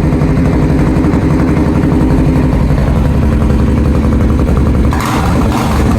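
Engine idling steadily through an inexpensive aftermarket muffler, with a blip of the throttle about five seconds in.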